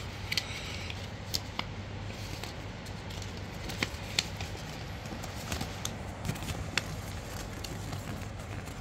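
Paper rustling and crackling as a folded phone instruction leaflet is handled and unfolded, with scattered sharp clicks and crinkles, the loudest about four seconds in. A steady low hum runs underneath.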